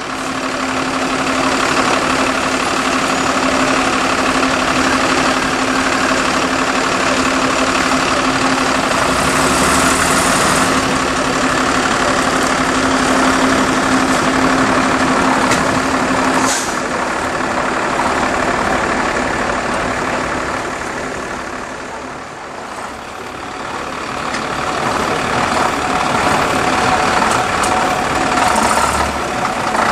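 Vintage London double-decker buses' diesel engines running at slow manoeuvring speed, a steady engine drone with a held low hum through the first half. A short hiss comes about halfway through. The engine sound eases briefly about two-thirds of the way in, then builds again as the next bus pulls forward.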